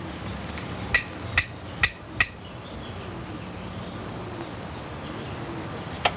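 Four sharp clicks about half a second apart over a steady low hum and hiss, with one more faint click near the end.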